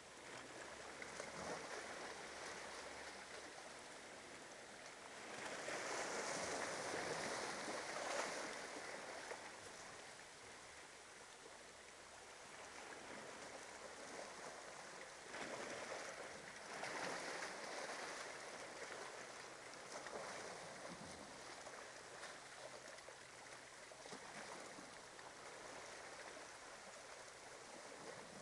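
Small waves washing up on the beach, a soft steady wash that swells louder twice, about six and about sixteen seconds in.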